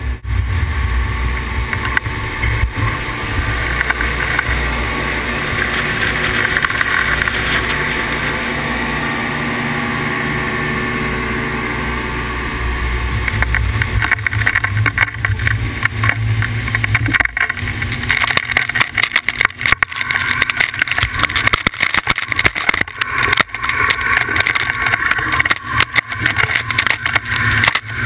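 Yamaha 150 HPDI two-stroke outboard running at planing speed, with wind and rushing water around the boat. About seventeen seconds in, the steady engine rumble gives way to a choppy rush of spray and water hitting the hull close to the microphone.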